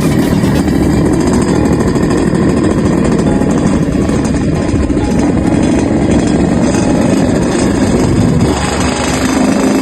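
Yamaha RX-King 135cc two-stroke single-cylinder motorcycle engine running steadily with its rough, snoring ('ngorok') exhaust note.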